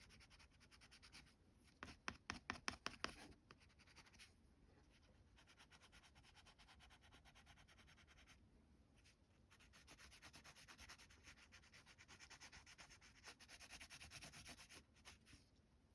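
Faint quick scratching of a water-soluble wax pastel crayon stroked back and forth on rough-textured cotton rag paper. A louder flurry of strokes comes about two seconds in.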